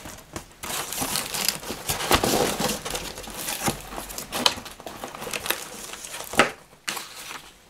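Cardboard box flaps being opened and crumpled brown kraft packing paper rustling and crinkling as hands dig into it, with irregular crackles and one sharp snap about six seconds in.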